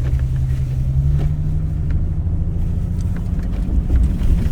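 Car engine running steadily under load, its pitch stepping up slightly about a second in, heard from inside the cabin.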